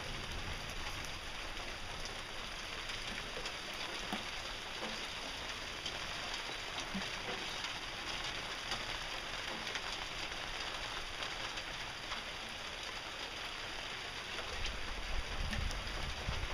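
Steady hiss of heavy rain falling during a storm. Wind buffets the microphone with a low rumble at the start and again in the last couple of seconds.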